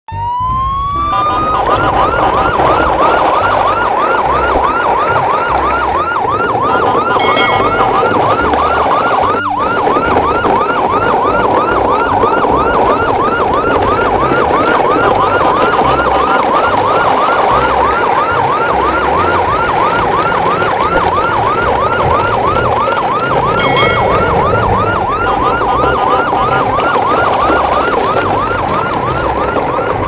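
Electronic siren that rises in pitch over the first second, then switches to a fast yelp, sweeping quickly up and down a little over twice a second without a break.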